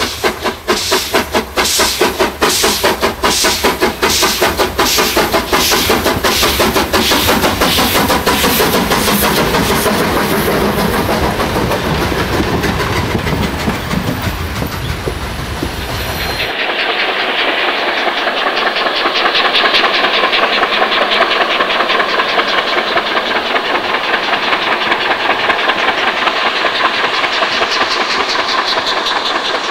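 Steam locomotive 131 060 working hard at speed, with loud, sharp exhaust beats about two a second as it passes, then its double-deck coaches rolling by with wheel clatter. After a sudden change partway through, the locomotive is heard chuffing with rapid, steady exhaust beats as it approaches.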